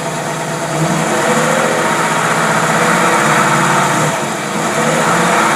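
Marine engine running steadily on a freshly rebuilt Rochester Quadrajet four-barrel carburetor, getting a little louder about a second in and then holding even.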